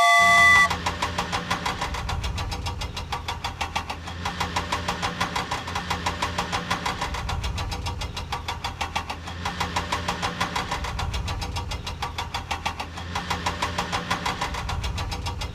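Brief chime right at the start, then a vehicle engine sound effect idling with an even, fast chugging pulse.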